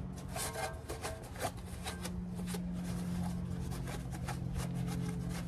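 A dry cloth rubbed over the cylinder head's exhaust-manifold mating surface in repeated, irregular wiping strokes, with a steady low hum underneath.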